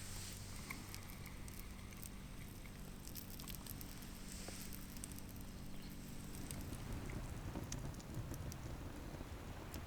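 Campfire crackling faintly, with scattered small pops and ticks from the burning wood. A low rumbling noise comes in past the middle.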